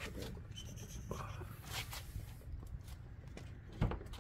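Faint rubbing and scratching, with a few small clicks and one sharp click near the end, as the latch of the Hummer H2's rear door is opened.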